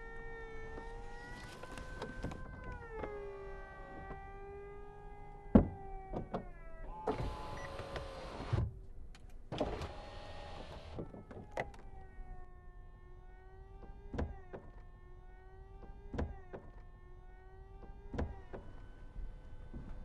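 Audi RS 5 Cabriolet's power-operated fabric roof mechanism running: a steady motor whine that shifts pitch a few times, with clicks and clunks from the roof linkage, the sharpest about five and a half seconds in. Two short bursts of hiss come around the middle.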